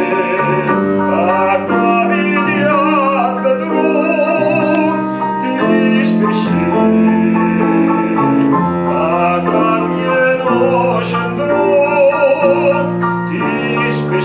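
Operatic tenor singing a Russian song with a wide vibrato, accompanied by piano.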